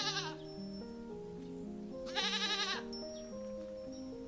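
A goat bleating: one long, wavering bleat about two seconds in, with the end of another bleat right at the start, over steady background music.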